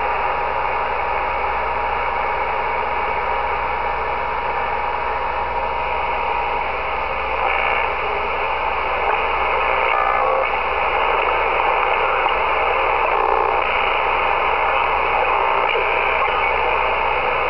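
ICOM IC-718 HF transceiver's speaker giving steady 80-meter band static and hiss as the receiver is tuned up the band. A steady whistle sounds for the first six seconds or so, then short snatches of signals pass as they are tuned through.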